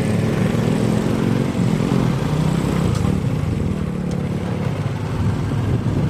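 A vehicle engine running steadily with a low drone.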